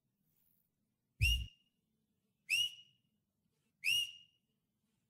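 Three short whistle-like chirps, about a second and a half apart, each sweeping quickly up and then holding a high note; the first has a low thump under it.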